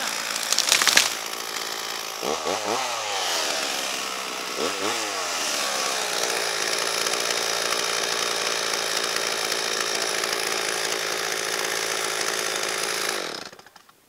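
Stihl MS 440 two-stroke chainsaw running hard. The engine pitch sags and climbs back twice in the first few seconds, then holds steady at high revs, with a brief loud burst about a second in. The sound falls away sharply just before the end.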